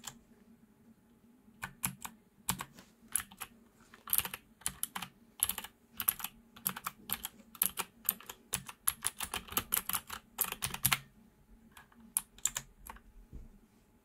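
Keys being pressed on a Thunderobot KC3068 mechanical keyboard with clicky switches. There is one click at the start, then irregular typing from about two seconds in to about eleven seconds, then a few scattered presses near the end.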